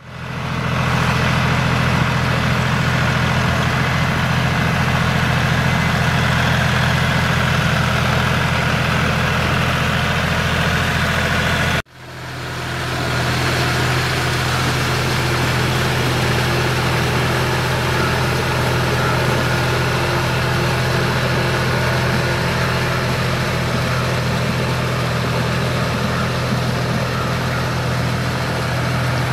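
Farm tractor's diesel engine running steadily under load while it drives a rotavator through deep, flooded mud. The sound drops out briefly about twelve seconds in, then carries on unchanged.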